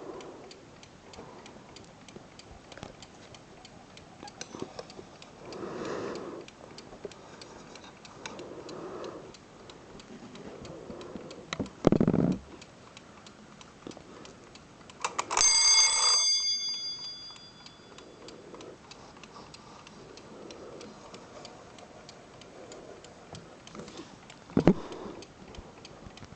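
Bayard mechanical alarm clock ticking steadily, with a few thumps. About halfway through its alarm bell rings for about a second, then the bell tones ring out.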